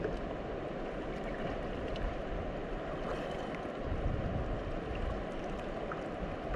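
Flowing river water rushing steadily, with a few faint small knocks.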